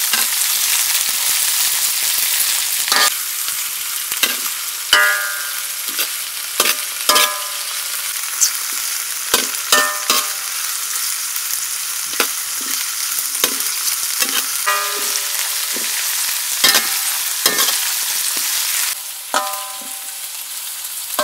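Grasshoppers deep-frying in hot oil in a metal wok, a steady sizzle, while a metal ladle stirs them and knocks against the wok again and again, each knock ringing briefly. The sizzle drops away near the end.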